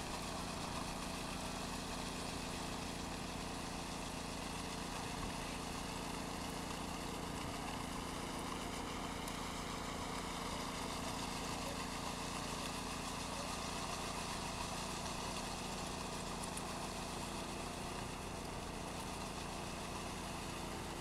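Ride-on concrete power trowel's engine running steadily, its pitch wavering slightly, while it finishes a concrete slab.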